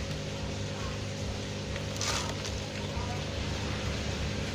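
Steady low mechanical hum of several tones, with a short rustle about two seconds in.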